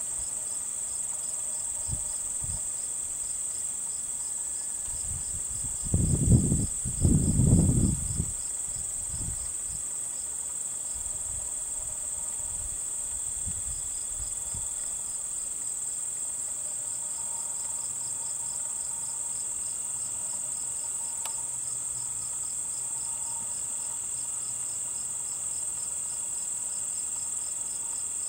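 Steady chorus of singing insects: a continuous high buzz with an evenly pulsing trill above it, the trill dropping out for a few seconds in the middle. Two short low rumbles break in about six and seven seconds in.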